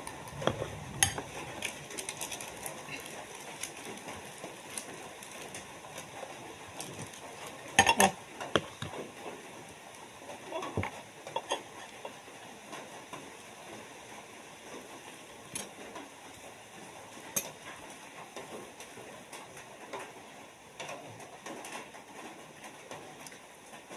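Metal fork clinking and scraping as it digs into a ripe soursop and knocks against the plate beneath, a scatter of short clicks with the loudest cluster about eight seconds in.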